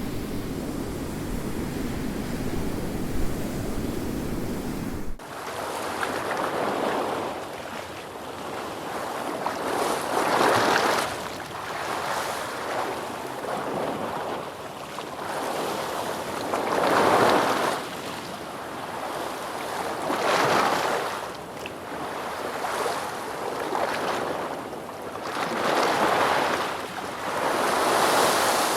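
A low, steady rumble cuts off abruptly about five seconds in. It is replaced by ocean surf: waves washing in and drawing back, each surge swelling and fading every few seconds.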